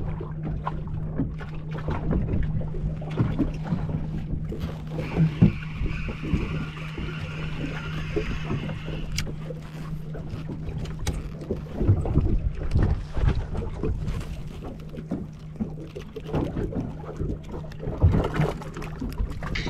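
Water slapping against a small boat's hull, with knocks from handling rods and gear, over a steady low hum. For a few seconds in the middle a spinning reel whirs as a yellowtail scad is wound in.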